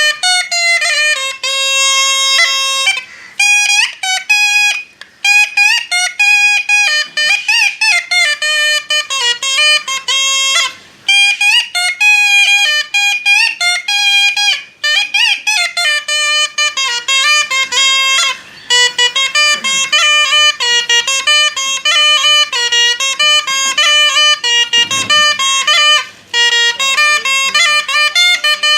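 Music: a single melody line in a reedy, brass-like tone, played in phrases with short breaks between them and with slides and wavering on some notes.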